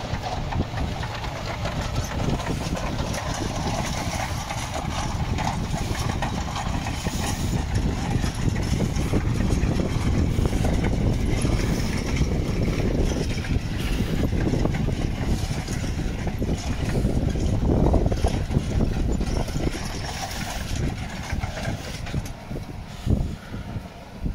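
John Deere 6155R tractor's six-cylinder diesel running steadily while it pulls a drag-hose slurry injector across grassland.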